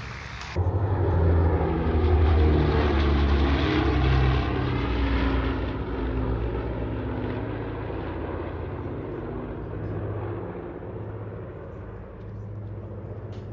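Propeller aircraft engine passing by: a loud drone whose pitch drops as it goes past, loudest in the first few seconds and then slowly fading.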